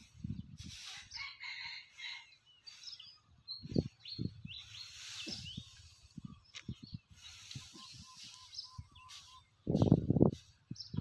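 Rustling of dry rice straw being pitched with a hand fork, with a rooster crowing and small birds chirping in the background. Low, muffled thumps come and go, the loudest about ten seconds in.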